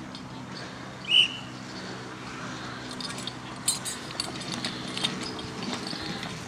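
A short, sharp whistle blast about a second in, the starting signal for a youth fire-brigade team's CTIF run, then the clicking and clinking of equipment and footsteps as the team sets off running.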